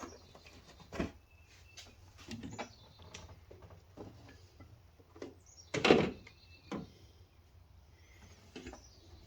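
Plastic engine cover of a BMW B58 engine being handled and fitted into place: scattered knocks and clunks of hard plastic, loudest about six seconds in.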